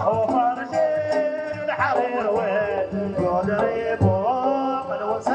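Live Dhofari folk music: a wavering, gliding melody over low hand-drum beats that fall about once a second.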